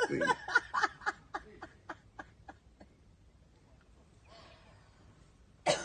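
A person laughing in short, quick bursts that die away over about two seconds.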